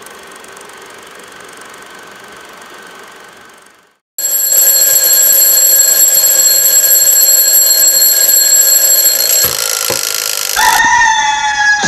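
A faint steady mechanical whir, a moment of silence, then a twin-bell mechanical alarm clock ringing loudly for about six seconds. Near the end two knocks come as a hand strikes the clock, the ringing stops, and music starts.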